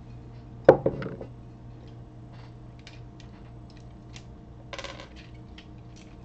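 A glass bottle is set down on a table with a loud knock and a short second knock about a second in. Then comes a run of small, sharp plastic clicks and snaps as the parts of a hand-held Optimus Prime Transformers toy are worked into robot form, with a brief cluster of clicks near the end.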